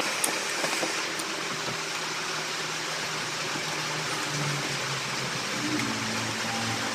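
Heavy rain pouring down: a steady, noisy hiss with no let-up.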